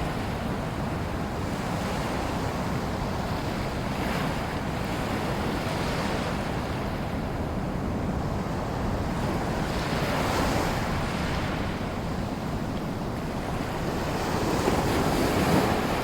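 Small waves in a sea lagoon washing in, a steady wash with several gentle surges of breaking water, the strongest near the end. Wind rumbles on the microphone underneath.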